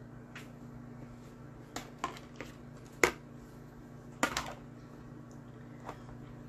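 A handful of short clacks and knocks as kitchen items are set down on a countertop: a plastic plate, lemons and a plastic lemon squeezer. The loudest is about three seconds in and a quick double knock follows about a second later, over a steady low hum.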